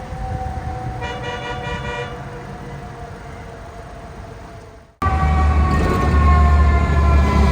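FDNY fire apparatus siren holding a tone that slowly falls, with a blast of air horn lasting about a second, about a second in; the sound fades, then cuts suddenly to a louder passage of heavy engine rumble under another siren tone sliding slowly downward.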